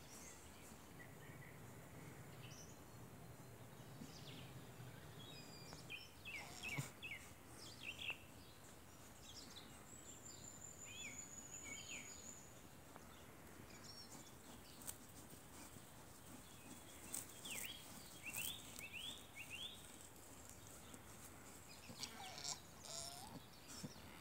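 Faint outdoor ambience with small birds chirping now and then, including a thin high trill near the middle.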